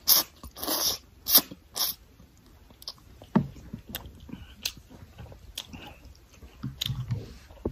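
A person slurping noodles, with several loud sucking slurps in the first two seconds, then quieter chewing with scattered small clicks.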